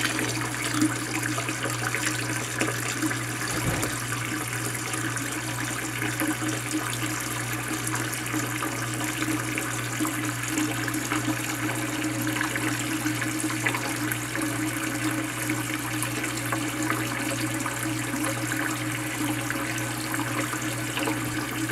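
Toilet tank refilling: a steady rush and hiss of water from the fill valve pouring into the tank, with a steady low hum beneath it.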